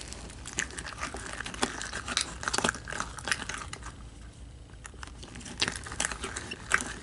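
Glue-and-saline slime being squeezed and pulled apart by hand, giving many irregular sticky clicks and crackles.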